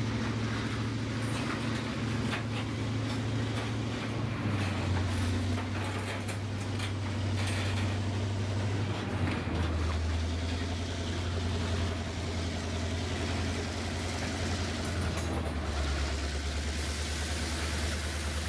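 Freight train of covered hopper cars rolling past: a steady low rumble of steel wheels on rail, with scattered clacks as the wheels cross the rail joints.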